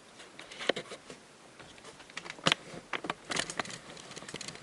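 Light clicks and taps of small die-cast toy cars being handled, scattered irregularly, with the sharpest click about two and a half seconds in.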